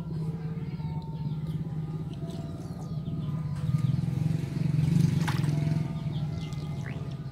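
A steady low engine drone, swelling about four seconds in and easing off near the end, with light splashing of water in a basin and a few faint bird chirps above it.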